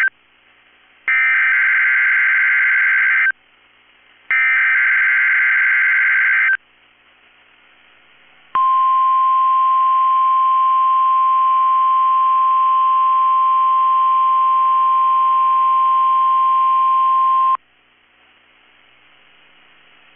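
NOAA Weather Radio EAS alert: the end of one SAME header and two more, each a couple of seconds of screechy digital data tones with about a second's gap between them. About two seconds after the last header, the steady 1050 Hz warning alarm tone sounds for about nine seconds, then stops, leaving faint radio hiss.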